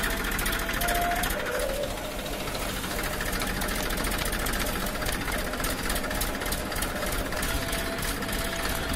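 Toy remote-control excavator's small electric motors and plastic gearboxes buzzing as its arm and bucket move, with a thin whine that stops and starts.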